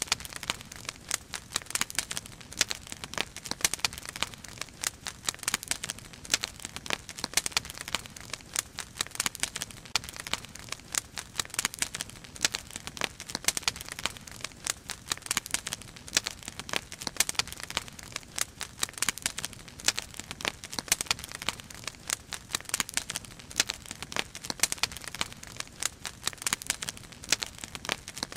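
Firewood burning in a steel fire basket, crackling with a dense, irregular stream of sharp pops and snaps.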